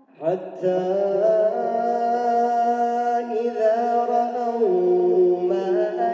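A male reciter chanting the Quran in slow, melodic style, drawing out long held notes with ornamented turns and steps in pitch. The voice comes in about a third of a second in, after a brief silence.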